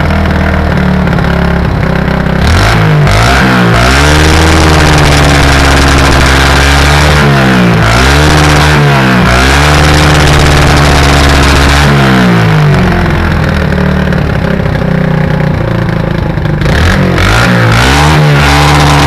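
Yamaha SR125's single-cylinder four-stroke engine revved up and down several times, with brief sharp pops at some of the rev peaks. It is misfiring at higher revs in a way that sounds like anti-lag, which the owner puts down to an intake leak.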